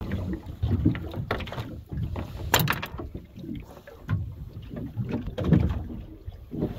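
Choppy water slapping irregularly against the hull of a small boat, with a few sharp knocks.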